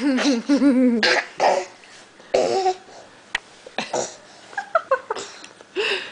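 A string of short vocal noises: cough-like huffs and breathy bursts, a brief pitched sound at the start and a few short squeaky calls near the end.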